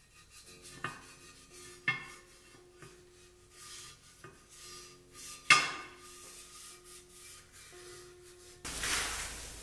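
A cloth is rubbed over a cast-aluminium engine casting. The part gives four sharp metallic clinks as it is handled, the loudest just past the middle. Loud, steady rubbing of the cloth on the metal starts near the end.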